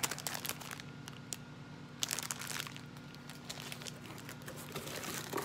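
Rod sleeves and their packaging crinkling and rustling as they are handled and unpacked, with a louder spell of crinkling about two seconds in.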